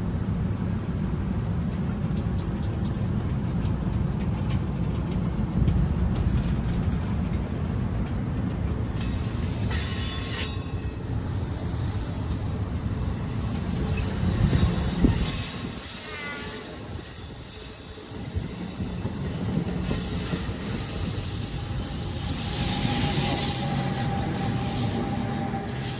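Passenger train running through a station with a steady low rumble, its wheels squealing on the rails several times: about ten seconds in, around fifteen seconds in, and again near the end.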